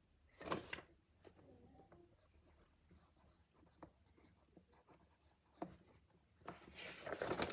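Drawing on paper: the pen or pencil point scratches faintly, with a short scrape about half a second in and a longer, louder stretch of scratching near the end.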